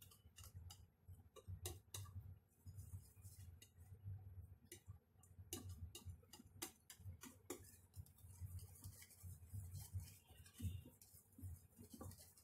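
Faint, irregular clicking of a wire whisk against the side of a bowl as cake batter is stirred, several clicks a second.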